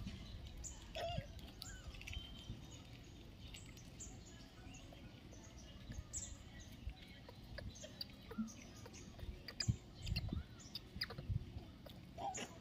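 Quiet outdoor ambience with scattered short high chirps and squeaks over a low rumble of wind, and a few soft low thumps near the end.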